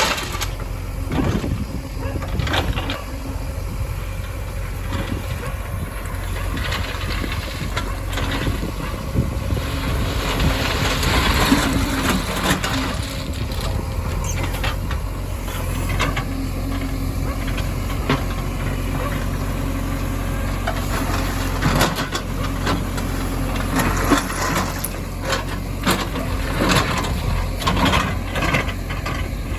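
Heavy diesel engine running steadily, with scattered knocks and clatter over it.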